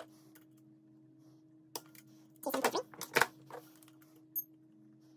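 Dry-fire trigger pull test on a Walther Q5 Steel Frame pistol held in a vise: sharp mechanical clicks of the trigger breaking against a digital trigger pull gauge and of the gun being handled and reset, one click a little under two seconds in, a quick cluster around three seconds, and another click near the end.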